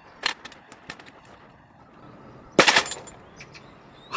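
Metal clicks and knocks as the lid latch of a stainless-steel mini puffed-rice machine is pried with a steel rod inside its cloth catch bag. A quick cluster of sharp clanks comes about two and a half seconds in. The cylinder had not built up pressure, so there is no bang.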